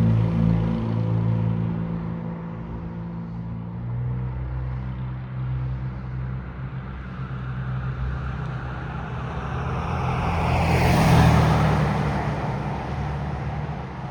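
A road vehicle passing, swelling to its loudest about eleven seconds in and then fading. Under it runs a steady low hum that weakens over the first few seconds.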